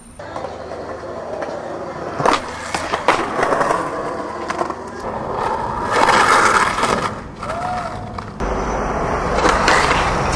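Skateboarding on concrete: wheels rolling, with sharp clacks of the board popping and landing, and a loud scraping grind about six seconds in.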